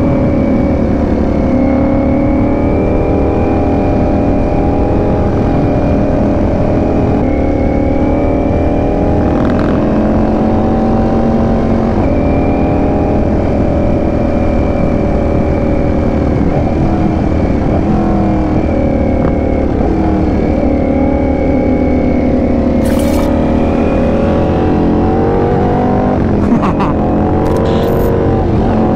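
Ducati Panigale V4 S's V4 engine running at road speed, its pitch rising and falling slowly with the throttle, over low wind rumble on the microphone. A few short clicks come near the end.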